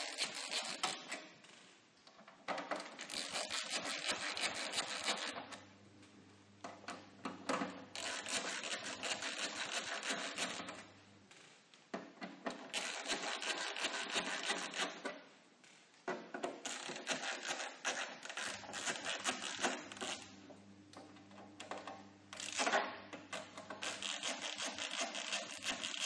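Torx T10 screwdriver turning out the screws from the back of a TiVo's metal case: scratchy, grinding rubbing in several stretches a few seconds long, with short pauses between screws.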